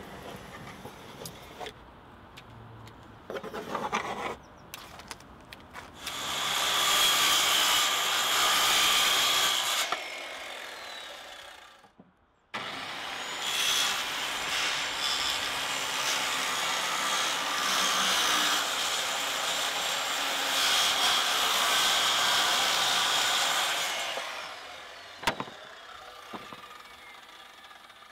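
Handheld circular saw ripping plywood into long strips, in two cuts: a short one of about four seconds and then a longer one of about ten seconds, each fading as the blade spins down. A few knocks of handling come before the first cut.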